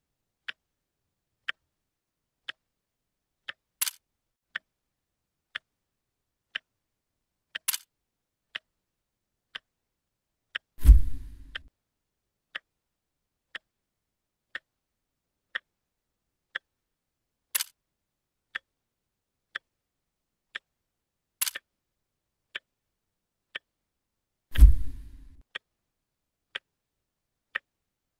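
A clock ticking steadily, about one tick a second, with a few sharper clicks in between. Two loud, deep thuds come about eleven seconds in and again about fourteen seconds later.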